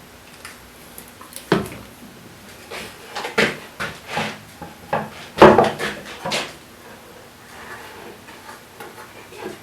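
Wooden jig parts and tools being handled and set down on a table saw top: a series of irregular knocks and clatters, loudest about halfway through.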